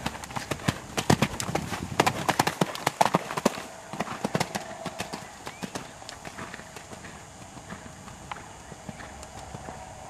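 Hoofbeats of a cantering horse, a quick rhythmic run of sharp strikes, close and loud for the first four seconds or so, then fainter as the horse moves away across the arena.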